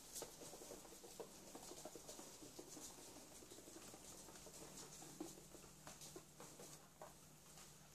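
Faint scuffling and many light clicks on a laminate floor: a flat microfibre mop being pushed about with a ferret scampering after it.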